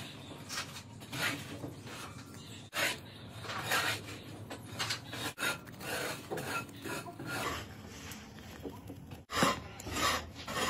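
A round file rasping over a cracked black plastic LED lamp housing stitched with copper wire, in a series of short strokes roughly one or two a second.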